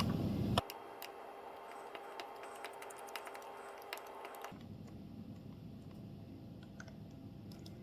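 Faint, scattered small clicks and ticks of a small tri-point screwdriver working the back-cover screws of a Nintendo Switch console. A louder low noise cuts off about half a second in.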